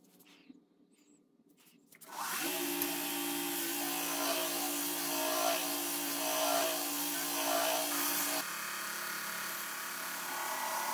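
Small belt grinder's electric motor starting about two seconds in, with a brief rising whine as it spins up, then running steadily with belt hiss. A few swells as a clamped steel piece is pressed against the belt.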